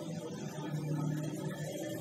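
Faint background music, its pitched notes coming and going under the room's noise.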